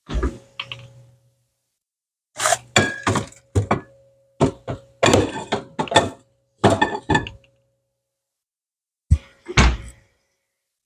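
A string of sharp knocks and clatters of hard objects, a couple near the start, about ten bunched in the middle and two or three near the end, each ringing briefly.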